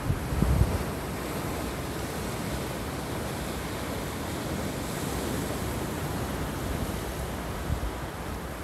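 Sea surf breaking and washing around rocks on a rocky shore, a steady rush of water. Wind buffets the microphone with low thumps in the first second.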